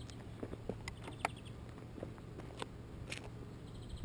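Faint outdoor ambience: short, high insect-like chirps repeated several times, scattered small clicks, and a low rumble underneath.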